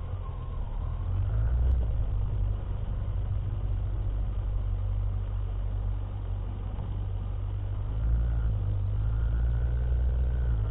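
Motorcycle engine running as the bike pulls away and rides slowly, a steady low rumble that grows a little louder in the first couple of seconds.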